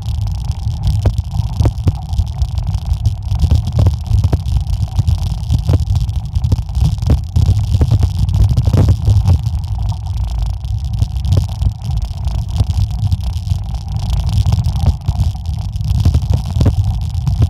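Mountain bike riding down a rough forest dirt trail: a continuous low rumble with many short, irregular clicks and rattles as the bike bumps over the ground.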